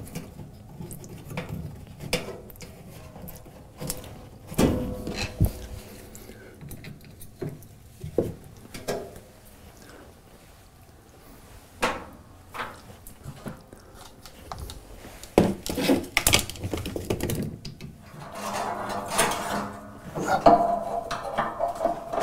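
Scattered metallic clinks and knocks of a hand tool and parts against a washing machine's sheet-metal base and motor mount, with a busier stretch of rattling and scraping near the end.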